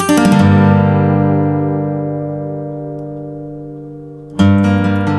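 Background music: a chord struck at the start rings out and slowly fades for about four seconds. A fresh chord then strikes near the end and rhythmic playing begins.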